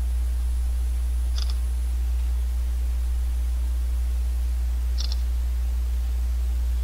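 Smartphone camera shutter sound, twice: about a second and a half in and again about five seconds in, each a short double click. Under it runs a steady low electrical hum.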